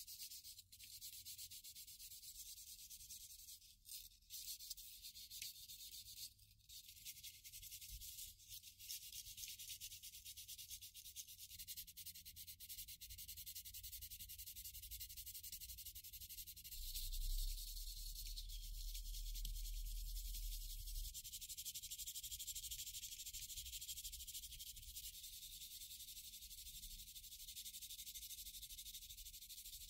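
Sanding stick and sanding sponge rubbing over dried filler putty on the seams of a plastic model kit fuselage, a continuous scratchy hiss of hand sanding that smooths the filled seams flush.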